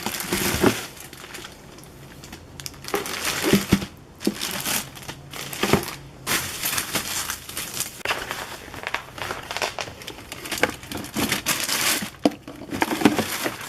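Packaging crinkling and rustling in bursts, with a few knocks, as a large shipping box is unpacked.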